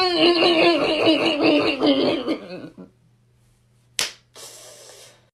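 A drawn-out vocal cry that wavers and fades out about three seconds in, then, after a pause, a single sharp slap followed by a brief faint hiss.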